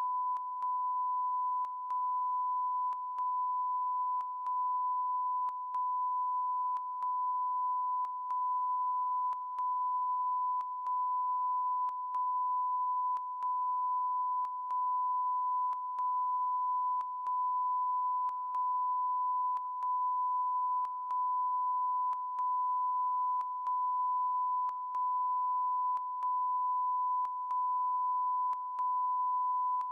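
A continuous electronic beep tone at one steady pitch fills the broadcast sound. About every second and a quarter it breaks for an instant, with a small click at each break. This is the never-ending beeping noise, a fault on the news broadcast's audio.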